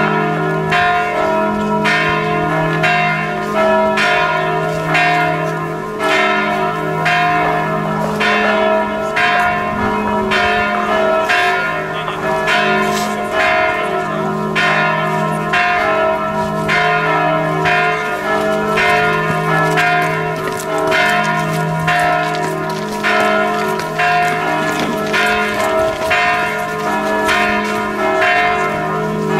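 Church bells tolling for a funeral: several bells of different pitches ringing together, struck in a steady, even rhythm of about three strokes every two seconds, their tones ringing on between strokes.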